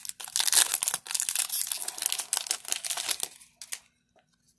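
Plastic trading-card pack wrapper crinkling while the pack is opened and the stack of cards is handled. Dense crackling for about three seconds, then it stops, leaving a couple of light clicks.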